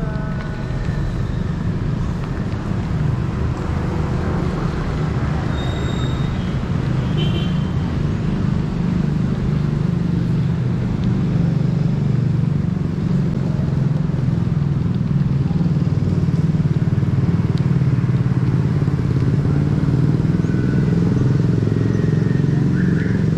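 Steady street traffic noise, mainly motorcycle and car engines running along the road, growing slightly louder through the clip.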